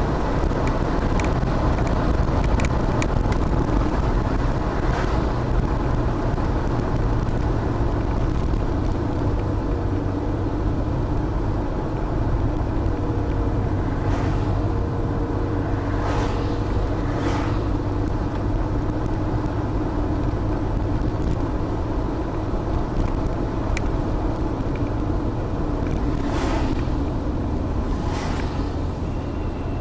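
Steady car driving noise: engine and tyres on the road making a continuous low rumble, with a few short hisses.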